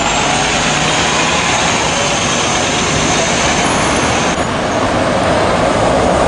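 Articulated city bus engine running as the bus pulls away, mixed with street traffic noise. The sound changes abruptly about four seconds in.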